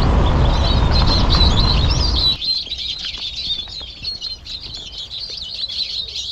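Small birds chirping continuously. For about the first two and a half seconds a loud low rushing noise lies under them, then cuts off abruptly, leaving the birdsong alone and quieter.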